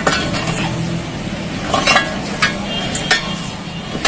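Scattered metallic clicks and light knocks over a steady hiss, from a Mitsubishi L200's front suspension being worked during a check for play.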